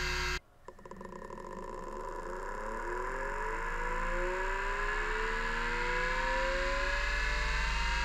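Miniscribe 3425 20 MB MFM hard drive spinning up: after a single click near the start, the spindle motor's whine climbs steadily in pitch and grows louder over several seconds.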